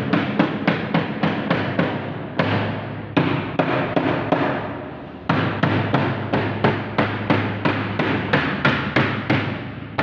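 Small mallet tapping on a UPVC door panel along its frame, in quick runs of about three knocks a second. There is a pause of about two seconds in the middle, then a second run of knocks.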